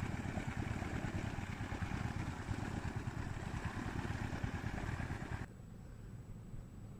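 Small motors of two river rafts running side by side, a steady low rumble with an uneven throb. It cuts off abruptly about five and a half seconds in, leaving only a faint hum.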